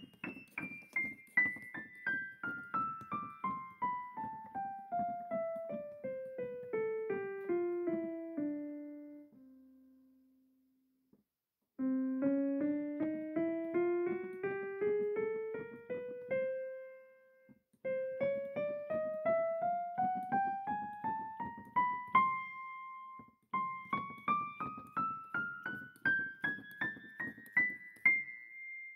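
Background piano music: a long run of notes stepping steadily downward, a brief pause about ten seconds in, then lines of notes climbing upward.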